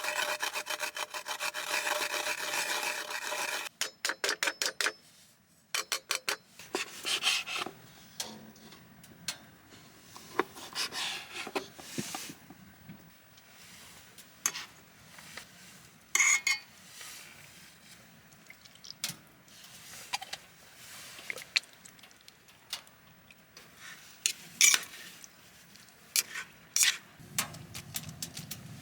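Camp cooking handling sounds: a fast rasping, scraping stroke sound for about three seconds, then a quick run of sharp clicks, followed by scattered clinks, knocks and short scrapes of utensils and cookware.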